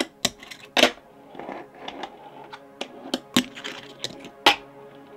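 Wooden fingerboard with metal trucks doing tricks on a small concrete ledge: a series of sharp clacks as the board and trucks pop and land, with the wheels rolling and grinding on the concrete in between.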